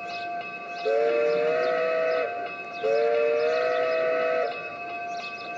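Two long blasts of a two-note steam whistle from a G-scale model steam locomotive's sound unit, each lasting about a second and a half and bending up slightly in pitch as it starts. A steady high tone and faint ticking run underneath.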